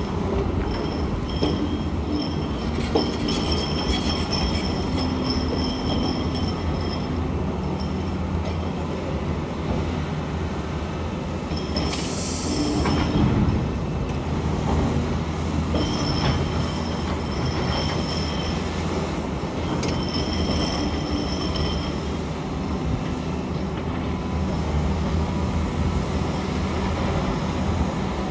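SANY SY500H 50-ton excavator's diesel engine running steadily under load, with high-pitched metallic squeals coming and going several times and a short harsh scraping burst about twelve seconds in.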